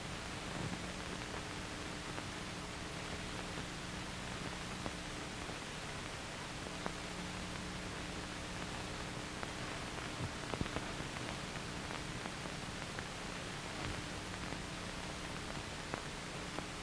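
Steady hiss and low hum of an old film soundtrack, with a few faint scattered clicks.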